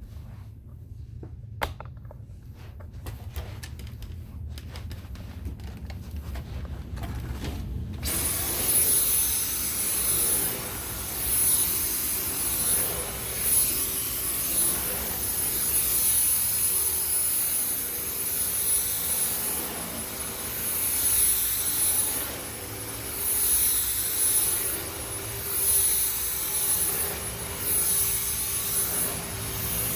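A couple of clicks, then about eight seconds in a Dyson V10 cordless stick vacuum starts with a steady high motor whine. Its sound swells and falls about every one and a half to two seconds as the cleaner head is pushed back and forth over carpet.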